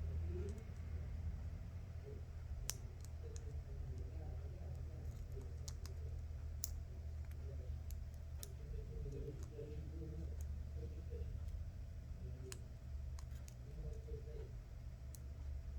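Sparse small clicks and taps of tweezers on an Apple Watch Series 5's parts as the replacement screen's flex cables are pressed into their connectors, over a steady low hum.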